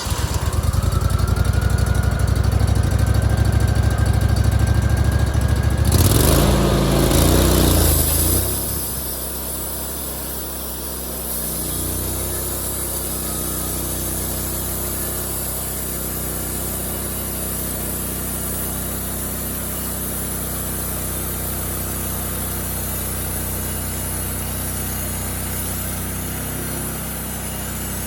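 Wood-Mizer portable sawmill's engine, freshly started, running fast with a thin whine rising slightly, then dropping about eight seconds in to a lower, steady run.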